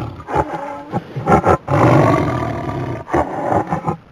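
Tiger roaring: several long, loud roars with short breaks between them.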